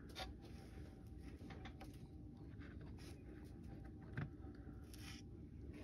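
Faint scattered clicks and taps of small plastic model-kit parts being handled and fitted, with one louder knock about four seconds in.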